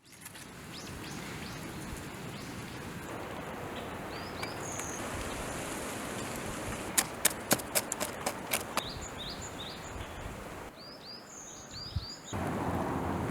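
Small birds chirping over a steady outdoor background. A quick run of about eight sharp clicks, about four a second, comes a little after halfway.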